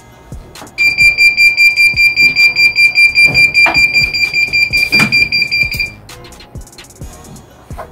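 Heat press timer alarm beeping rapidly and high-pitched, about five or six beeps a second, signalling that the press time is up; it cuts off suddenly as the cap press is opened. Two knocks of the press handle come during the beeping, over faint background music.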